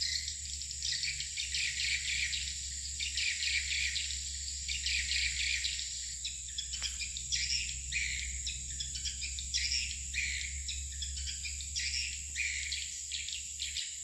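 Swiftlets twittering around a swiftlet house: a dense, continuous stream of quick high chirps, with one sharp falling call about seven seconds in. Under them runs a steady high drone and a low rumble.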